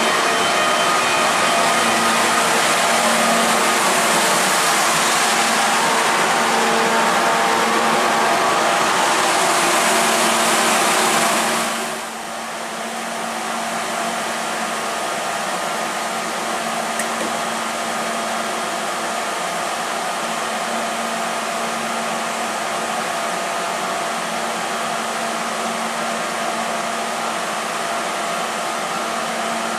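Trenitalia E.402 electric locomotive's cooling blowers and electrical equipment running, a loud steady rush with faint steady whining tones close alongside the locomotive. About twelve seconds in the sound cuts to a somewhat quieter steady blower hum with humming tones from the locomotive standing at the platform.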